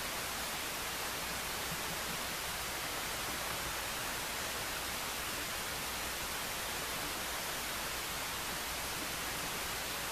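Steady, even hiss with no other events.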